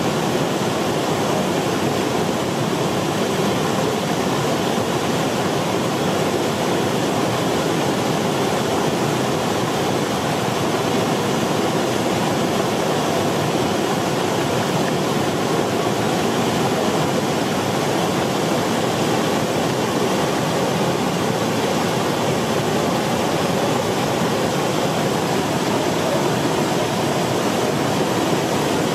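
The Rhine Falls, a wide waterfall on the Rhine, rushing steadily: an even, unbroken wash of falling and churning white water.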